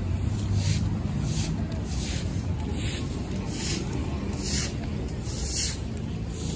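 Footsteps on wet, puddled pavement: a short splashing hiss with each step, about one every 0.7 seconds at walking pace, over a low steady rumble.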